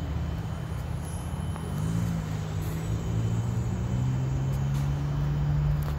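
A vehicle engine running with a low, steady hum; its pitch rises about two seconds in and then holds.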